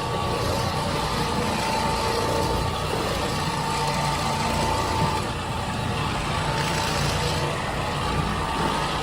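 Floor cleaning machine running steadily, its motor driving a pad and bonnet over a wood floor.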